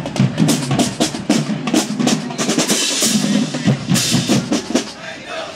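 Marching drumline playing a fast cadence: snare drums and bass drums beating a tight rhythm, with crash cymbals ringing out about three seconds in.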